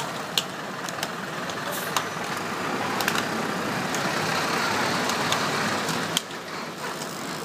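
Street traffic: car engines running in slow traffic, with a scatter of sharp clicks. The steady noise swells in the middle and drops off suddenly about six seconds in.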